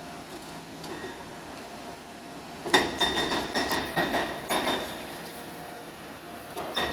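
Demolition excavator's grab working on a building: rubble and metal debris crashing and clattering, starting suddenly about three seconds in and again near the end, with a high metallic ring over the impacts.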